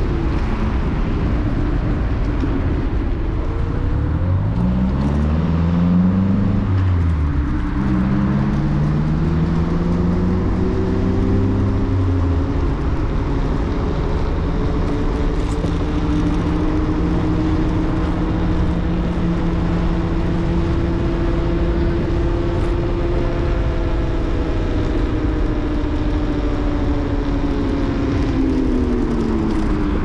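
Apollo Explore electric scooter riding, its motor whine climbing in pitch as it speeds up, dipping briefly, then rising again and holding steady while it cruises. The whine falls in the last couple of seconds as the scooter slows. Steady wind and road noise run under it.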